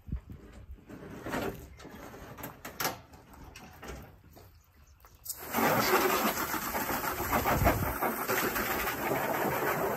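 A few knocks and clatters as a plastic IBC tote half in its metal cage is tipped onto its side. About five seconds in, a garden hose spray nozzle starts, and a loud, steady hiss of water spraying against the inside of the plastic tote runs on from there.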